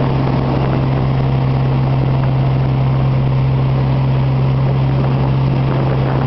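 Vehicle engine running at a steady speed, a constant drone with road noise, heard from inside the cabin.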